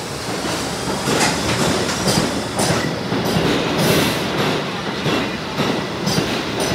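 R62A subway train pulling out of a station and running close past: a steady rumble of the cars with wheels clacking over rail joints.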